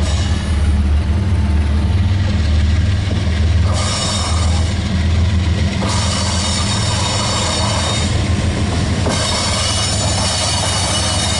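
Freight diesel locomotive engine rumbling low and steady as the train approaches, with a hiss above it that jumps up and down in level a few times.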